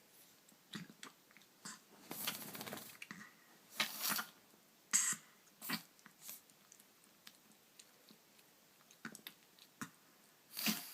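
A Chihuahua sneezing again and again: a string of short, sharp sneezes, the longest about two seconds in, with small clicks and sniffs between.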